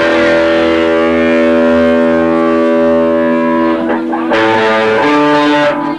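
Electric guitar ringing out loud sustained chords through an amplifier: one chord held for about four seconds, then a second chord struck and cut off sharply just before the end.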